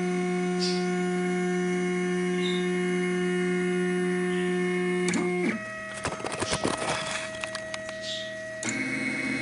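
MakerBot Replicator 3D printer's stepper motors whining with a steady pitch as the build plate moves while the printer sets up for a print. About five seconds in, the pitch slides down. Then come a few seconds of clicking and rattling, and the whine returns near the end.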